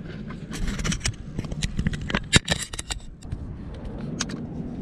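Handling noise: irregular clicks and scrapes, the sharpest about two and a half seconds in, over a low steady rumble.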